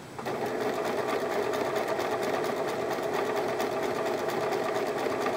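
Electric domestic sewing machine stitching a straight seam at a steady speed. It starts a moment in, with a fast, even run of needle strokes.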